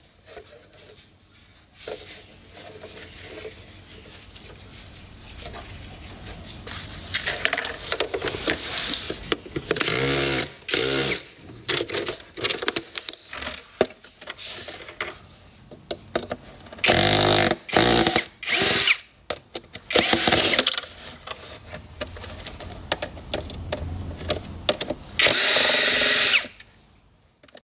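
Handheld electric power tool run in repeated short bursts, its motor whine climbing as it spins up and falling as it stops, with the longest, loudest runs in the second half.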